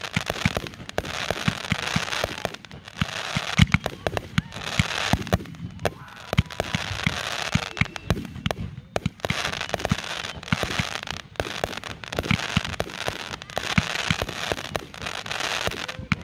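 Aerial fireworks firing in rapid succession: many sharp bangs of launches and bursts follow one another throughout, over a dense crackle from the bursting stars.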